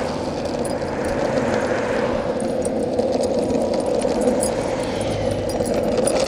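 Steady rushing noise of moving along a paved path, with light metallic jingling from a running Siberian husky's harness and leash.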